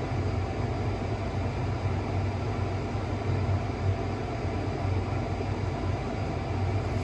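Steady static-like hiss over a low hum, which the speaker puts down to his electric faux fireplace.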